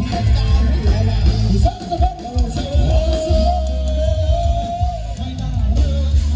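Live band music with a steady heavy bass beat and a long, wavering melody note held through the middle.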